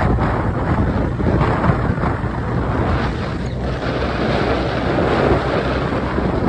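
Wind buffeting the microphone from a moving vehicle: a loud, steady rush with a heavy low rumble.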